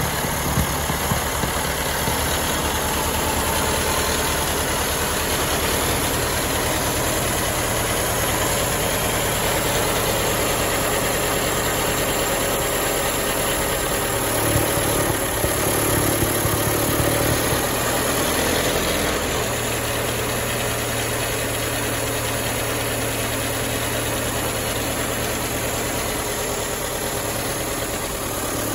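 The petrol engine of a 1913 Leyland S3 double-decker bus idling steadily with an even beat, briefly a little louder about halfway through before settling back.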